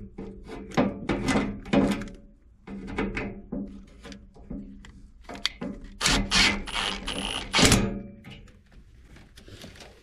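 Handling noises as a replacement control transformer is fitted into a sheet-metal blower cabinet: irregular clicks, knocks and metal taps, with a louder scraping rustle lasting about two seconds starting about six seconds in.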